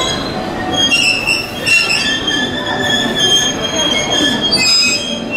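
281-series Haruka limited express EMU braking to a stop, its wheels and brakes squealing in several high, shifting tones over a low rumble.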